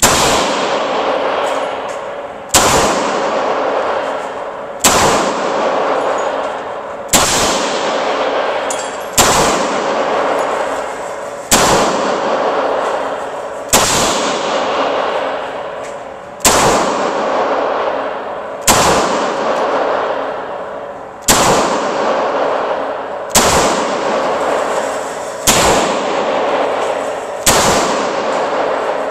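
Semi-automatic pistol fired slowly at an indoor range, single shots about every two to two and a half seconds, around a dozen in all. Each shot rings on in a long echoing decay off the range walls.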